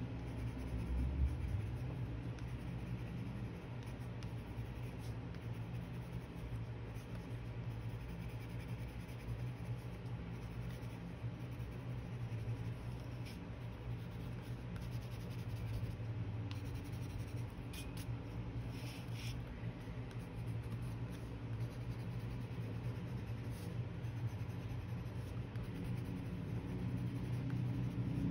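Colored pencil scratching on watercolor paper in steady shading strokes, over a steady low hum.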